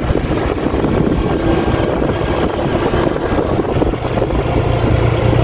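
Steady rumble of a moving vehicle's engine and road noise, with a low hum that grows a little stronger near the end.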